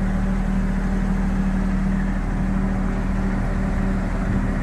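Executive Silent hot water high-pressure cleaner running steadily, a constant low drone with a strong hum, measuring about 73 decibels close up at the machine.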